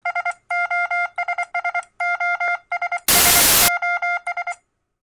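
Electronic beep sound effect: quick runs of short, buzzy beeps all at the same pitch, in clusters. A little past three seconds they are cut by about half a second of loud static hiss, then a few more beeps follow and stop shortly before the end.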